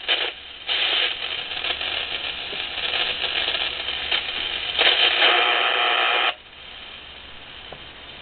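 Ten-Tec 1054 regenerative shortwave receiver being tuned across the band, its speaker giving loud swelling static and noise between stations. About six seconds in the noise drops abruptly to a low steady hiss.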